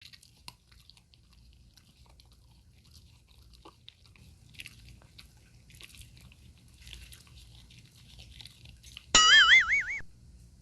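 Chow Chow dog chewing, with small crunches and clicks. About nine seconds in comes a loud wavering electronic tone, like an added sound effect, lasting about a second and cutting off abruptly.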